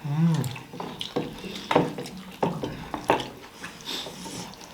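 Wet eating sounds close to the microphone: about five sharp mouth clicks and lip smacks while chewing, after a brief bit of voice at the start.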